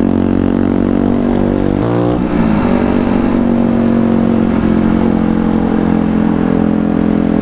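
Aprilia Tuono 125's single-cylinder four-stroke engine under power as the bike accelerates, with a brief break in its note about two seconds in, as at a gear change.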